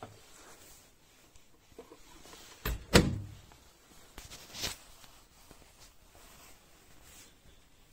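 Two sharp knocks close together about three seconds in, the second the louder, then a lighter clack about a second and a half later.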